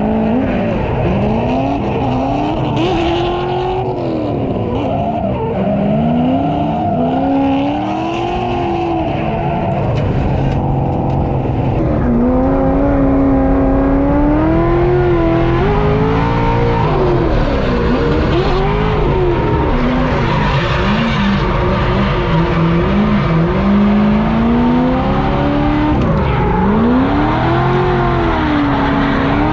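Drift car engine revving up and down over and over, its pitch rising and falling every second or two, with tires squealing as the car slides.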